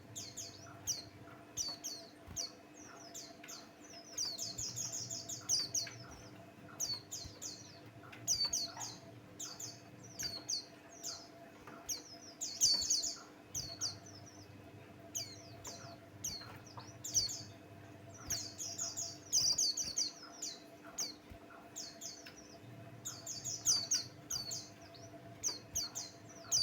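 White-eye songbird (pleci) singing continuously in quick, high, chattering chirps and short trills, over a faint steady hum.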